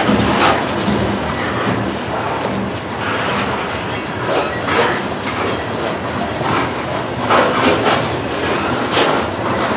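Loaded coal hopper cars rolling past on steel wheels: a steady rail noise with sharp clickety-clack beats, often in pairs about half a second apart, as the wheel sets cross rail joints.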